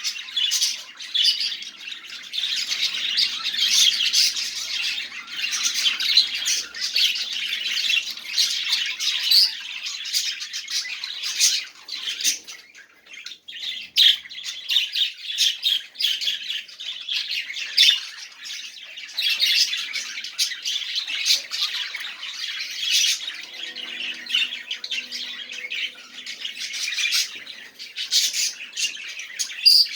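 Budgerigars chattering and warbling without pause, a dense run of fast chirps, clicks and squawks, with a brief lull about halfway through.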